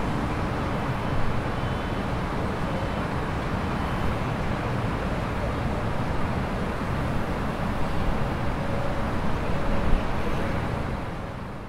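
Steady urban ambience: a wash of distant traffic noise with a low rumble, fading out near the end.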